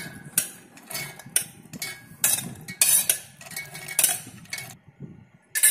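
Steel clinking and scraping as boiled corn kernels are tipped from a steel plate into a stainless-steel mixer-grinder jar: a dozen or so irregular sharp clinks, dying away briefly near the end.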